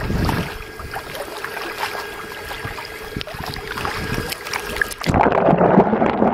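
Water sloshing and splashing against a camera held at the waterline as a kayak passes, with a steady faint hum under it. About five seconds in, the camera goes underwater and the sound turns dense and muffled.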